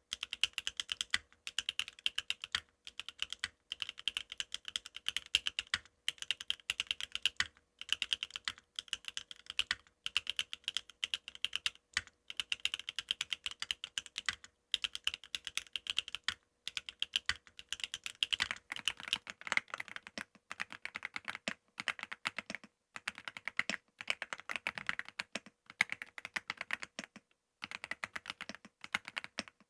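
Continuous typing on a Neo70 mechanical keyboard, a dense run of key clicks with short pauses. About eighteen seconds in it switches to an Aula F65 mechanical keyboard, whose keystrokes sound lower-pitched.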